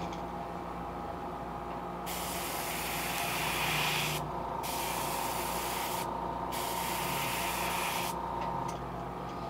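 Airbrush spraying paint onto a crankbait lure in three hissing bursts, starting about two seconds in, with short breaks between them. A steady hum runs underneath.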